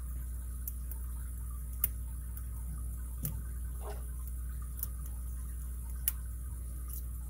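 Light metallic clicks and ticks of a lock pick and tension wrench working the pins of a Master Lock M15 padlock during single-pin picking. The clicks come singly and at uneven intervals, a few seconds apart, over a steady low hum.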